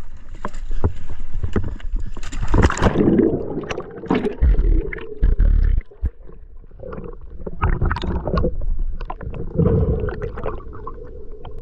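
Splash of a spearfisher going overboard about three seconds in, then muffled underwater gurgling and rumbling with scattered knocks, heard through a camera under the water.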